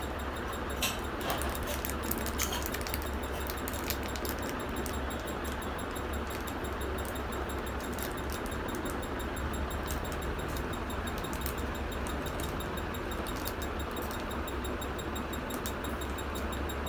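A steady low hum and hiss of room noise, with scattered light clicks and jingles, most of them in the first few seconds, from a baby handling lollipops and candy wrappers while wearing silver anklets and bangles.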